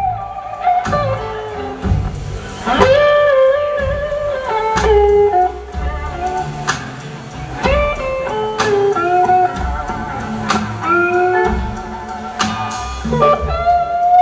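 Live blues-rock band: an electric guitar lead of long held notes that bend and glide in pitch, over bass and drums.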